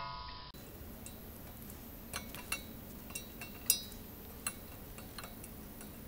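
Screw-type brake caliper piston compression tool being turned against the front caliper of a 2010 Mini Cooper, pushing the piston back in. It gives a few scattered metallic clicks and clinks, the loudest a little past halfway, over a faint steady hum.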